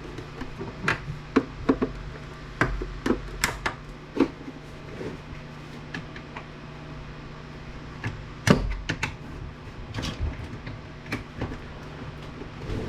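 Scattered clicks and knocks from the plastic and metal casing of an APC battery backup unit being handled and pried at during disassembly, with one louder knock about eight and a half seconds in, over a faint steady hum.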